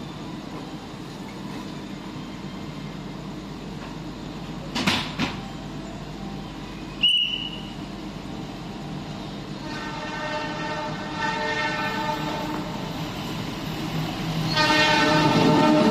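An approaching diesel locomotive sounding its horn, a steady multi-toned blast that comes in faintly about ten seconds in and gets much louder near the end, over the low steady rumble of the train at the platform. Earlier there are a couple of brief knocks and a short high beep.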